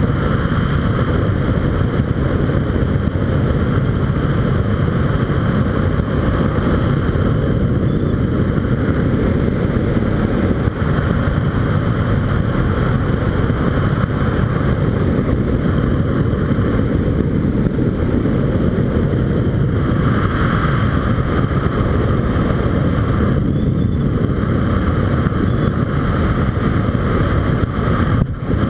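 Loud, steady rush of wind buffeting the camera microphone, driven by the airspeed of an unpowered speed-flying descent.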